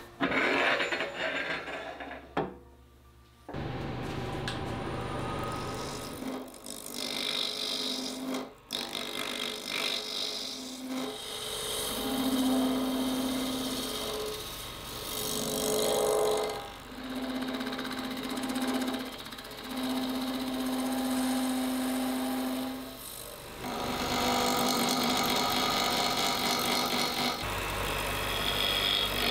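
Wood lathe running while a gouge and then a skew chisel cut a spinning blank of burl wood and cast resin. The cutting noise comes and goes with each pass, and a low steady hum sounds through some of the cuts. A few knocks come first, and the machine sound rises about three seconds in.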